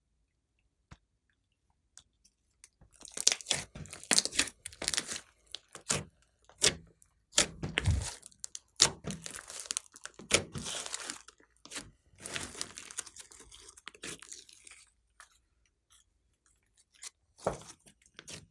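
Glossy slime mixed with clay being squeezed, stretched and folded by hand, giving sticky crackling squelches in irregular bursts after a quiet start. A louder low thud comes about eight seconds in.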